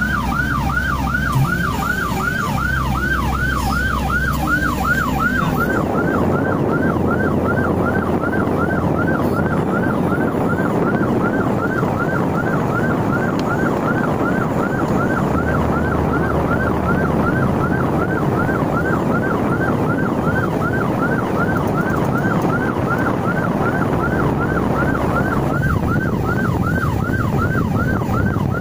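Emergency vehicle siren on a fast yelp, an evenly repeating rising-and-falling wail about three times a second, heard from inside a car in stopped traffic. For the first five seconds or so a second, lower siren yelps alongside it.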